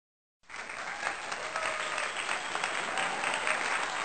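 Crowd applause, dense steady clapping that starts about half a second in.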